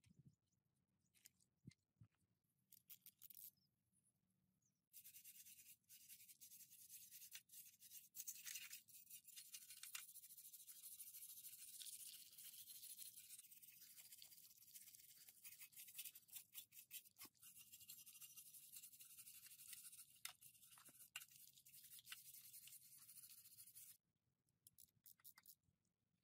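Wire brush scrubbing a rusty, mud-caked motorbike drive chain, a dense rapid scratching that starts about five seconds in and stops a couple of seconds before the end. A few light clicks come before it.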